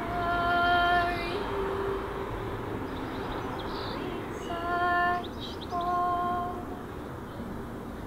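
A woman singing a few long held notes with pauses between them, over quiet acoustic guitar.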